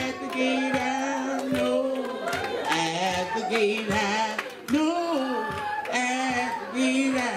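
A solo voice singing a slow gospel song with long held notes, over an accompaniment with a steady beat about once every second.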